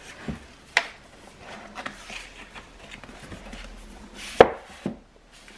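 Paperback books being slid and set back on a wooden bookshelf by hand: soft rubbing and rustling of covers, with a few sharp knocks against the shelf, the loudest about four and a half seconds in.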